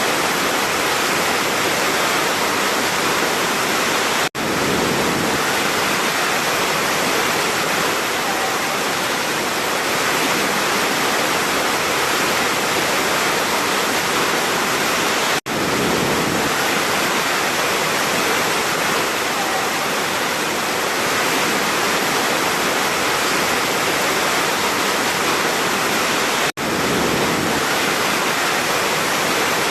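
Large waterfall pouring: a steady, dense rush of falling water. The sound cuts out for an instant three times, about every eleven seconds.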